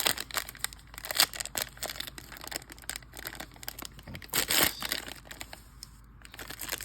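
Plastic foil wrapper of a jumbo pack of basketball trading cards crinkling and crackling in the hands as it is worked open, with louder rustling bursts about a second in and again past the midpoint. The wrapper is hard to open.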